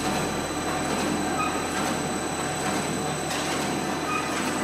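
Jam-center dog treat extruder running steadily, pushing out a continuous rope of product: a constant mechanical drone with a thin, steady high whine.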